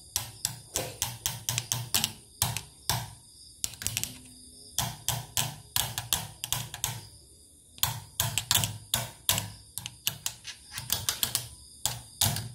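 Portable computerized embroidery machine's needle-bar mechanism clattering in bursts of rapid metallic clicks, with short pauses between bursts, as it is worked. The mechanism turns heavily because thread is wound into it.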